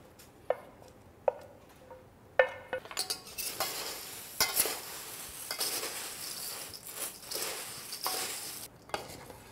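Corn flakes coated in caramel being tossed with two metal utensils in a stainless steel mixing bowl. A few light metal clinks come first. From about three seconds in until near the end there is a steady rustle and crunch of flakes, with utensils scraping and clicking against the bowl.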